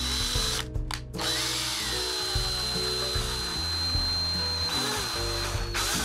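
DeWalt 18-volt cordless drill driving a screw into a roll of toilet paper: the motor runs with a steady high whine, breaking off twice briefly in the first second, then runs on and cuts off suddenly near the end.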